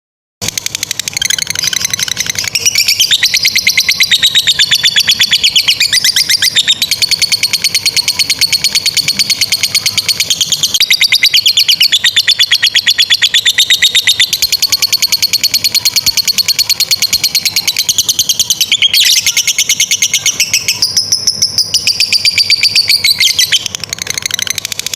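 Lovebird giving its long 'ngekek' chatter: a loud, high, very fast rattling trill of rapidly repeated notes, held almost without pause, with a short break about three quarters of the way through.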